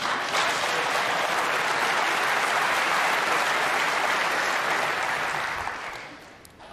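Snooker audience applauding a shot, a steady clapping that dies away about six seconds in.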